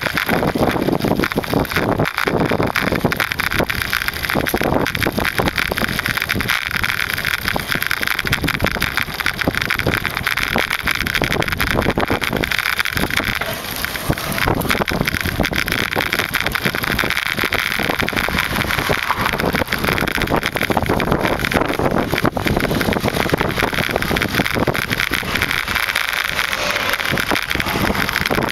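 Steady wind rush and buffeting on the microphone of a camera riding along on a moving bicycle, with rolling road noise underneath.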